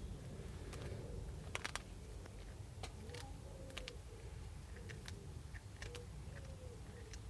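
An animal chewing a snack: irregular small crunching clicks, a few quick ones close together about a second and a half in, over a steady low hum.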